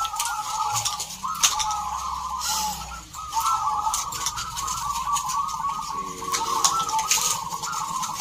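Several caged zebra doves (perkutut) cooing at once, their rolling, stepped notes overlapping into a near-continuous chorus, with a brief lull about three seconds in.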